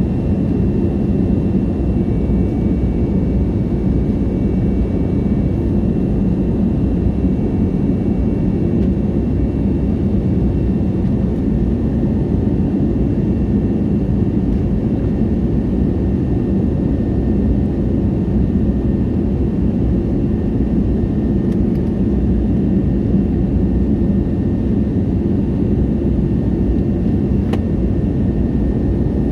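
Steady cabin noise of an Airbus A320neo under engine power: a low, even rush of engine and airflow noise heard inside the passenger cabin, with faint steady tones above it.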